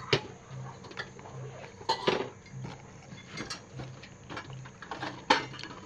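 Metal fork clinking and scraping against a metal plate, a few sharp clicks scattered through.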